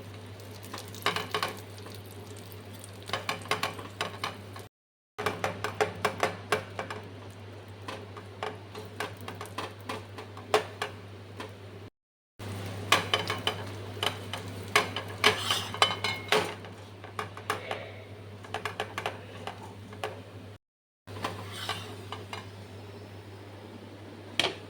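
A spoon or spatula stirring and scraping in a cooking pot, with repeated clinks of metal on the pan and a faint sizzle, over a steady low hum.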